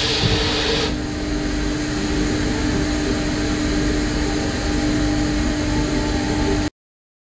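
Mazak FH-4800 horizontal machining center running: a steady machine hum with a hiss over it that drops away about a second in. The sound cuts off abruptly near the end.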